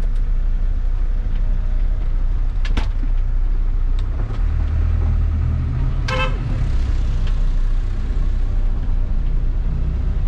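Converted bus motorhome's engine running with a steady low rumble as it pulls out of a downhill parking area, with a click near three seconds in and a brief toot about six seconds in.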